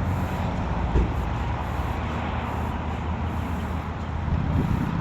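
Steady vehicle noise: a low engine hum over a hiss of road noise, with a small knock about a second in.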